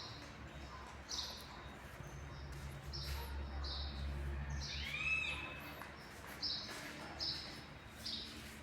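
Birds chirping in short, high, repeated notes, with one louder arching call about five seconds in, over a low steady hum.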